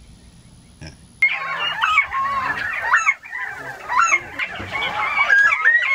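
A flock of northern bobwhite quail calling, with many short chirps and whistles overlapping, starting abruptly about a second in.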